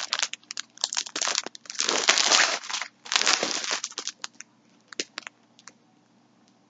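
Plastic packaging of yarn packs crinkling as they are handled, in about four loud bursts over the first four seconds, followed by a few light clicks and taps.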